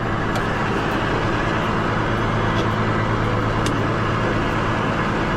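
Engine running steadily with a low, even hum and a few faint ticks.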